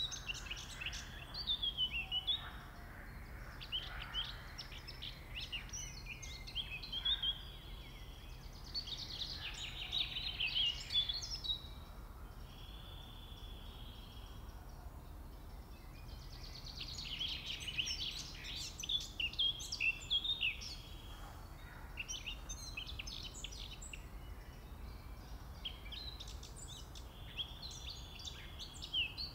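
Songbirds singing in bursts of quick twittering phrases separated by short pauses, over a faint low rumble.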